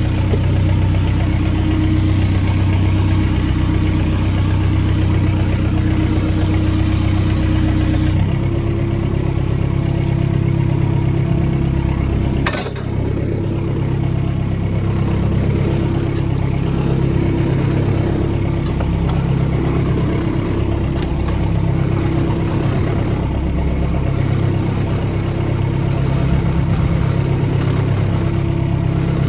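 Small fishing boat's engine running steadily; its note changes about eight seconds in, and there is a brief dip with a click a few seconds later.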